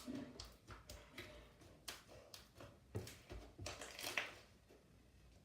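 Homemade slime being squeezed and stretched by hand, giving a scattered run of faint sticky clicks and pops. It has conditioner and lotion worked in to make it clickier.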